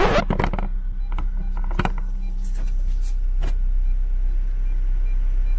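Car engine idling, a steady low hum heard from inside the cabin, with several light knocks and clicks over the first few seconds.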